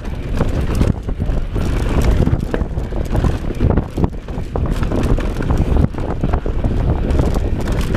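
Wind buffeting the microphone while a mountain bike rolls fast over a dirt singletrack, its tyres running on the dirt and the bike rattling and clacking over bumps many times.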